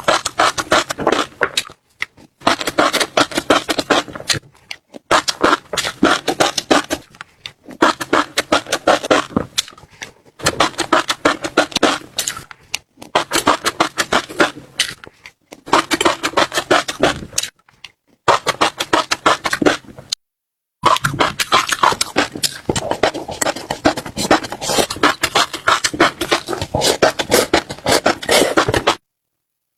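Close-miked chewing of crunchy food: dense, rapid crackling crunches in stretches of a few seconds, broken by short silent gaps where the recording cuts out.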